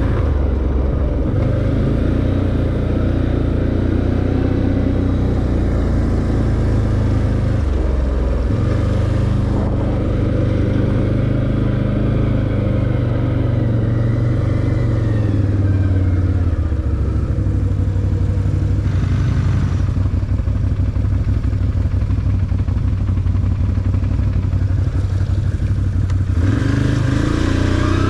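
Can-Am ATV engine running under way, its pitch dropping and rising a few times with the throttle.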